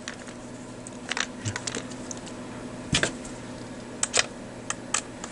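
Handling of a plastic multimeter case: scattered light clicks and taps as the case halves are fitted together and a screwdriver goes into the screw holes, the loudest click about three seconds in, over a faint steady low hum.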